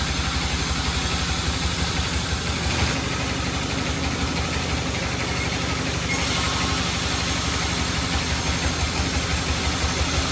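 Sawmill machinery running: an engine with a fast, even low pulse under a steady hiss, the hiss shifting in tone about three and six seconds in.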